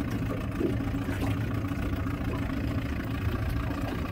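Gas outboard motor running steadily at low trolling speed, a low even hum.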